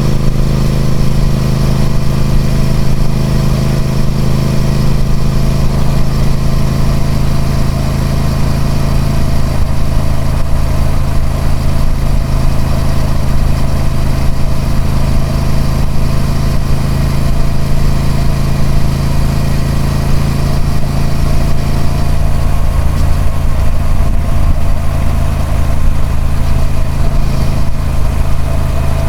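Triumph Speed Twin 1200's 1200cc parallel-twin engine running steadily through its stock exhaust, the engine note holding nearly constant.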